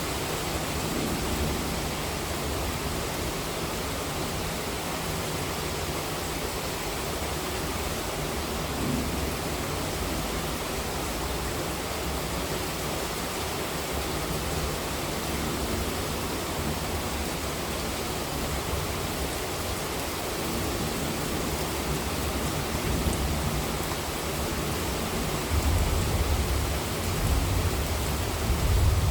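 Heavy monsoon rain falling steadily as an even hiss. A low rumble of thunder builds about 25 seconds in.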